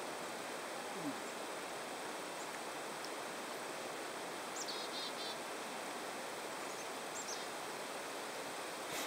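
Steady outdoor background hiss, with a few short high bird chirps about halfway through and another pair a couple of seconds later.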